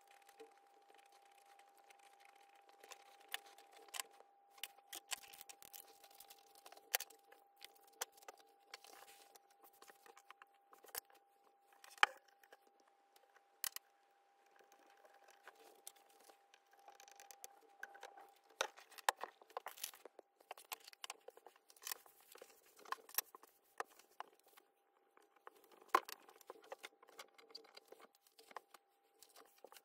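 Quiet close-up handling sounds: satsuma peel tearing, then scattered clicks and taps of small parts being fitted onto a fabric-covered lamp cable, over a faint steady tone.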